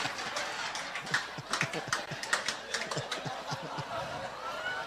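Audience laughing after a punchline, with scattered hand claps and the laughter dying down.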